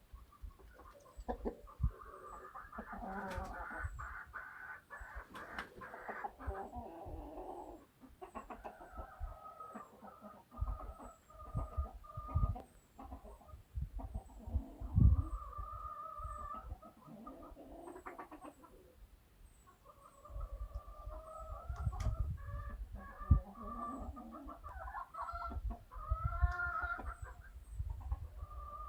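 A flock of domestic chickens calling: hens clucking, with several long drawn-out calls of a few seconds each. Faint short high chirps repeat throughout, and there are a few sharp knocks, the loudest about halfway through and again about three-quarters of the way through.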